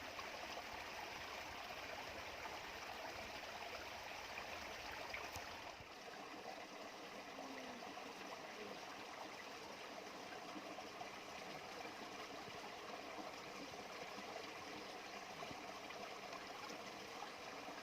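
Stream water running steadily over stones; about six seconds in, the low rumble underneath drops away and the flow sounds lighter.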